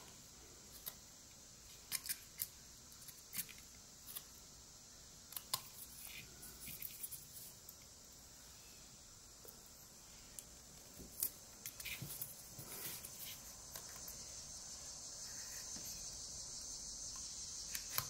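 Rough Rider pocket knife blade slicing and paring eastern white pine by hand: scattered, irregular short cutting clicks as wood is taken away up to a carved line. Under them a steady high-pitched hiss that grows louder near the end.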